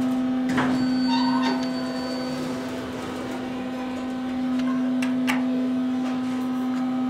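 OTIS 211 hydraulic elevator's pump motor running as the car rises, a steady hum with a couple of faint clicks.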